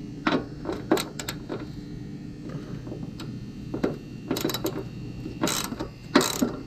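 Socket ratchet working a 10 mm fender bolt: scattered clicks and short rasping runs of the ratchet's pawl, the longest a little over halfway through and again near the end.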